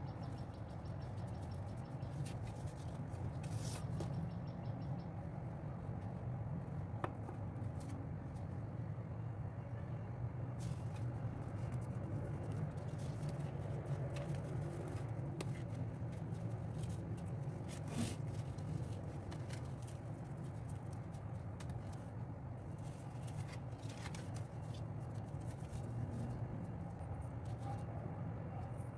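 Paper rustling and light taps from handling cut paper hearts and a folded paper card, with a ruler set down on it near the end, over a steady low background hum.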